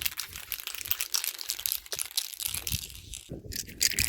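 Two-part (2K) aerosol clear coat can being shaken hard after its activator has been released, the mixing ball inside rattling in a quick run of clicks, several a second.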